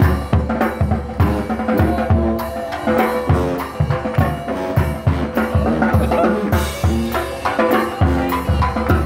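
New Orleans second-line brass band music: a bass drum and snare keeping a steady beat of about two strokes a second under held horn notes.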